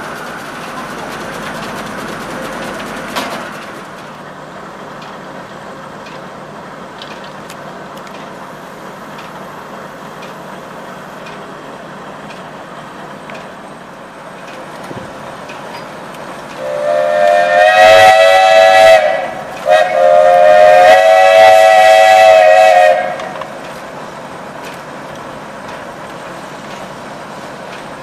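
Steam whistle blowing two long blasts of about three seconds each, a little past halfway, over the steady running noise of an 1890s steam-powered sawmill's engine and line-shaft machinery.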